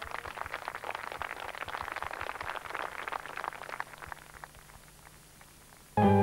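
Audience applauding: many scattered hand claps that thin out and die away about four and a half seconds in.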